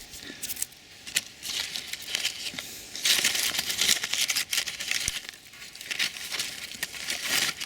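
Leafy branches rustling and crinkling as they are handled and pushed into a tree cage, in irregular bursts that are loudest in the middle and near the end.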